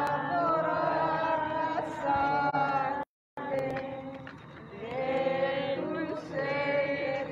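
A crowd of people singing a hymn together in unison, holding long notes. The sound drops out completely for a moment about three seconds in.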